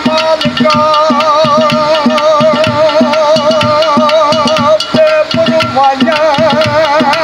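Punjabi folk singing: a man holds a long wavering note with vibrato, breaking off about five seconds in and taking it up again. Underneath, fast hand drumming on an upturned aluminium cooking pot and stick strikes on a clay pot (gharha) keep the rhythm.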